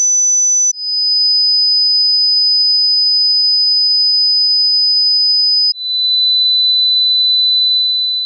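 Hearing-test pure sine tones: a steady high-pitched tone that steps down to a lower pitch just under a second in, and down again about six seconds in, each change marked by a brief drop in level. The last tone starts to fade near the end.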